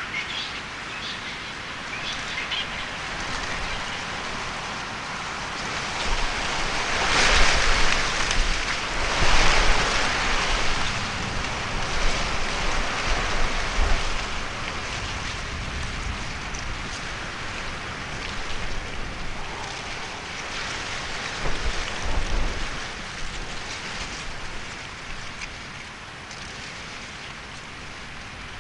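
Rain falling, with a hiss that swells heavier for a few seconds about a quarter of the way in, and low rumbles underneath at times.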